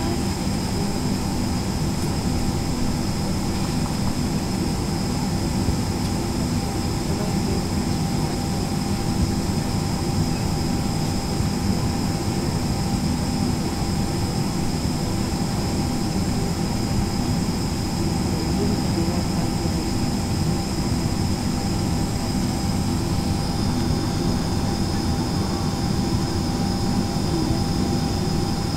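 Steady cabin noise inside a Boeing 767-300ER on the ground: a dense low rumble with a steady high whine over it. A second, fainter whine joins near the end.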